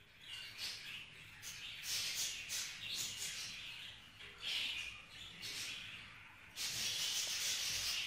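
Budgerigars chattering in a run of short high chirping bursts, with a longer unbroken stretch of chatter near the end.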